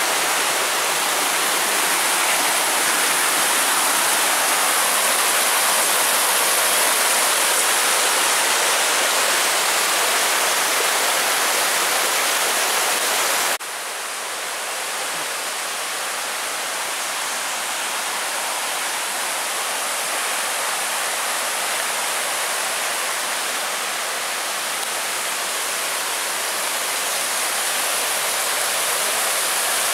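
Mountain stream rushing over rocks in small cascades, a steady rush of water; about halfway through it drops suddenly to a little quieter level and carries on steadily.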